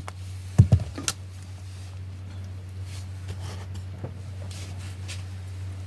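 Handling noise from a power cord and plug: a short thump about half a second in, a sharp click soon after, and a few faint clicks later, over a steady low hum.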